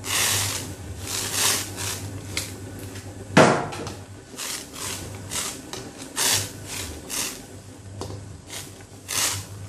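Metal ladle stirring and scraping through thick, bubbling cornstarch broth in a steel wok, in a run of short strokes with one sharp knock of ladle on metal about three and a half seconds in, over a steady low hum.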